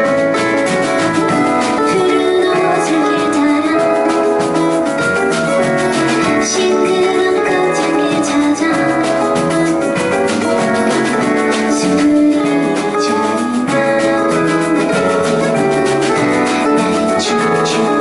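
Small live band playing a song, with guitars, keyboard and drum kit.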